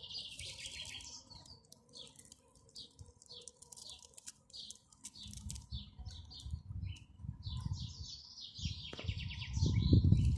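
Small birds chirping and twittering in many short, high calls. A low rumbling noise comes in about halfway through and grows loudest near the end.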